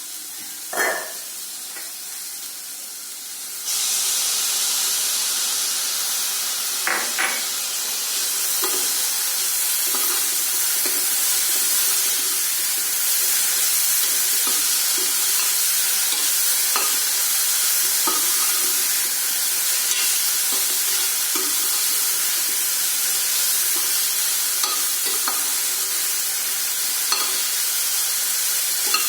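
Food sizzling in hot oil in a pan, a steady hiss that gets suddenly louder about four seconds in, with scattered light taps and scrapes of a utensil against the pan.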